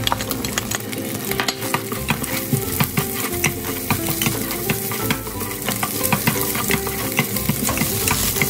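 Scrambled egg, garlic and diced carrot sizzling in hot vegetable oil in a stainless steel pot, while a plastic spatula stirs and scrapes across the pot's bottom in quick clicks and scrapes, several a second.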